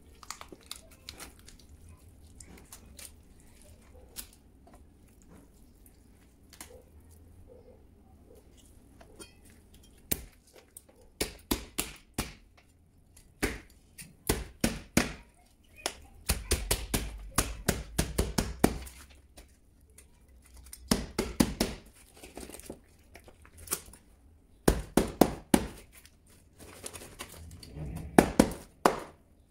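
Meat cleaver chopping through a raw fish carcass on a plastic cutting board: clusters of sharp blows, several strikes at a time, starting about ten seconds in, with a quick run of them a few seconds later. Before that, only faint handling of the fish.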